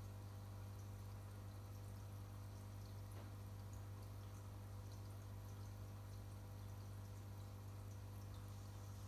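Aquarium equipment running: a steady low hum from the air pump and filter motor, with faint drips and small bubble pops from the water.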